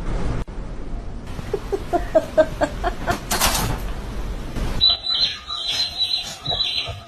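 A run of short pitched animal calls, then, from about two-thirds of the way in, a bird's repeated high chirps.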